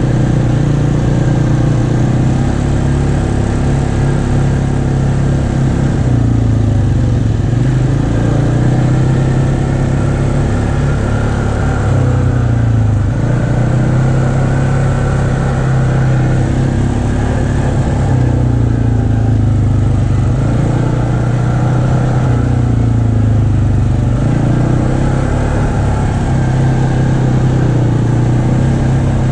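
ATV engine running under way, its pitch rising and falling slowly as the throttle opens and eases off.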